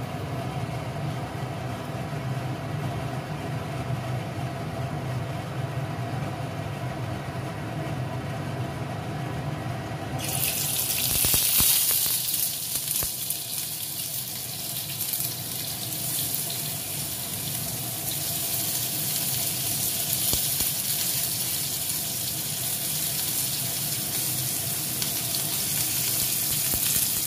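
A low steady hum, then about ten seconds in a hiss starts suddenly as salted paneer cubes go into hot oil in a kadai and keep sizzling steadily as they fry.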